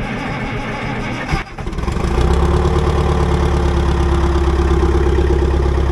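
Two-stroke four-cylinder Detroit Diesel engine of an old 18-ton excavator, just started, running unevenly at first. After a brief drop about a second and a half in, it settles into a steady, smooth idle.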